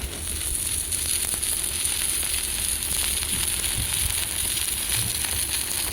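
Stick-welding arc burning a 2.5 mm 308 stainless steel electrode: a steady crackling sizzle with a bright high hiss.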